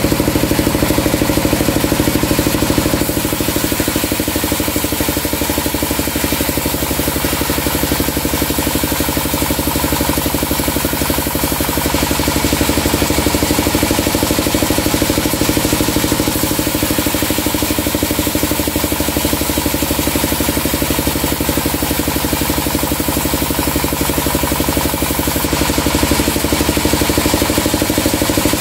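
Portable trailer-mounted band sawmill running steadily, its engine drive and band blade sounding as a log is fed through the cut.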